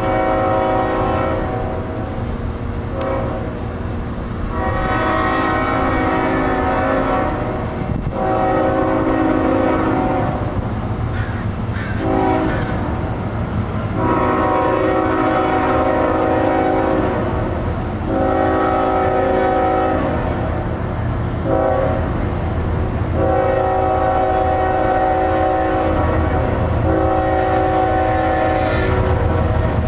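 Union Pacific freight locomotive's horn sounding a series of long blasts with a few short ones between, over the steady low rumble of the approaching diesel train.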